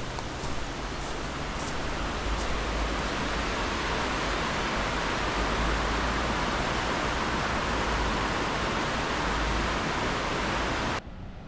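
Steady rushing of a waterfall, growing over the first two seconds, then cutting off suddenly near the end.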